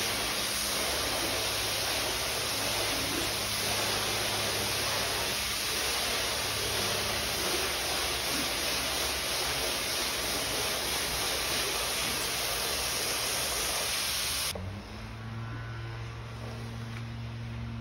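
Spray wand on a hose blasting a steady jet of water into a wool-pile area rug to flood-wash it, a loud even hiss. About three-quarters of the way in the spray cuts off suddenly, leaving a low steady hum and the faint scrape of a squeegee pushing water across the wet rug.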